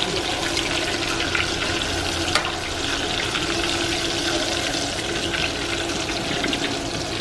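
Hot oil sizzling and bubbling steadily as Hot Cheeto–coated mozzarella sticks deep-fry in a pot, with one sharp click a little over two seconds in.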